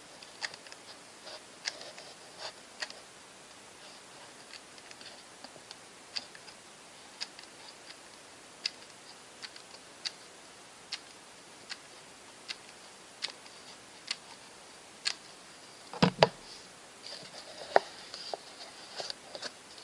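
Hot-gluing folded cardboard: faint, sharp clicks about once a second, with a few louder knocks about three-quarters of the way through as the cardboard is pressed and handled.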